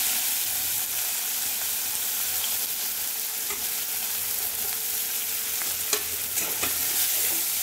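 Chopped vegetables (capsicum, onion, crushed peas and carrot) sizzling steadily in hot oil in a steel kadhai as they are tipped in, with a few light clicks partway through and near the end.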